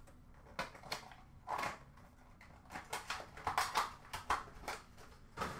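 Hockey trading cards and their packaging being handled by hand: irregular rustles, slides and light taps, with a cluster of sharper ones in the second half.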